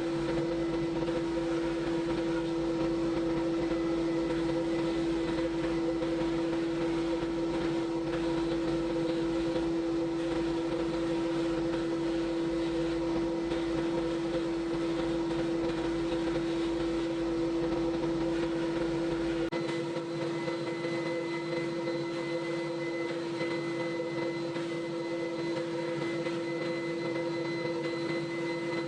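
A machine running steadily with a fixed-pitch hum. About two-thirds of the way in, the deep rumble drops away and a thin higher whine comes in.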